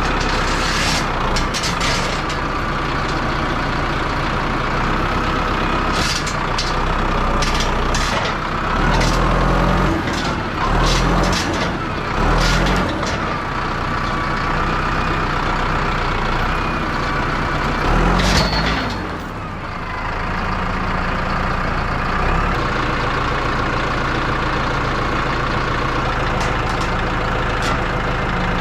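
Heavy machine's engine running under load while dragging a large felled tree trunk, its revs surging several times about a third of the way in and once more past halfway. Scattered clanks and knocks ride over it.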